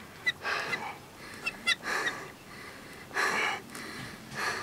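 A person breathing hard, with deep breaths about every second and a half: exhaustion from a long rod-and-reel fight with a very large white sturgeon. A few short high chirps come in the first two seconds.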